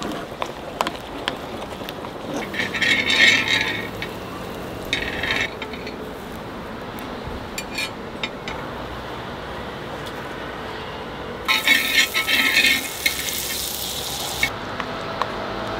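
Butter and bread sizzling in a hot camping griddle pan over a gas stove, with a loud burst of sizzling lasting about three seconds near the end and shorter bursts earlier. Light clinks of a utensil stirring food in a plastic container come at the start.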